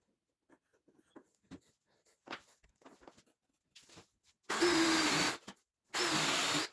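Light clicks and knocks of tools and parts being handled, then a power tool run twice in short bursts of about a second each.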